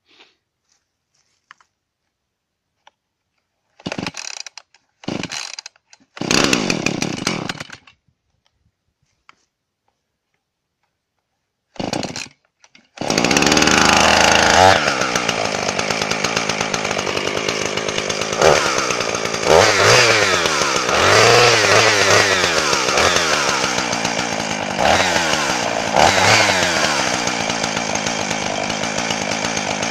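Husqvarna 450e two-stroke chainsaw cold-started by pull cord. A few short bursts from the starting attempts come first, then the engine catches about 13 seconds in and keeps running. It is revved in several surges before settling at a steadier, slightly lower speed near the end.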